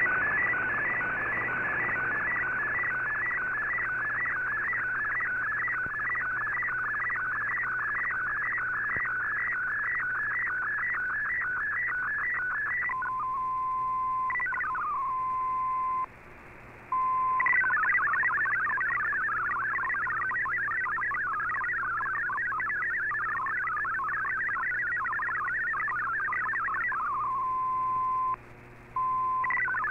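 MFSK digital-mode data signal from a shortwave broadcast, heard through the receiver's audio. For about 13 seconds it is a fast, regular warbling pattern of tones, then a steady single tone with a quick falling sweep and a short break. From about 17 seconds it becomes some ten seconds of rapidly hopping tones carrying text, then another steady tone, a brief break, and a new burst just before the end.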